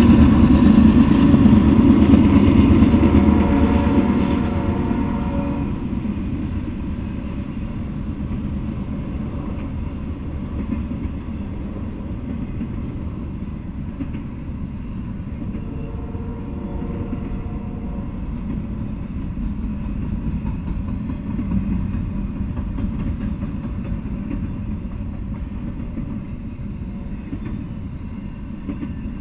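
Freight train passing: a diesel locomotive is loudest for the first few seconds, then the sound settles to the steady low rumble of double-stack container cars rolling by on the rails, with a brief tone about halfway through.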